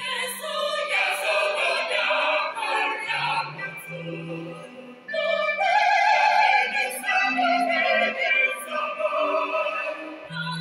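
Small mixed choir of men and women singing a Christmas carol, with a brief break about five seconds in before the voices come back louder.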